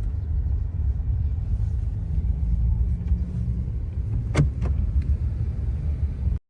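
Steady low rumble of a car driving, heard from inside the cabin, with a sharp click about four and a half seconds in and a fainter one just after; the sound stops abruptly near the end.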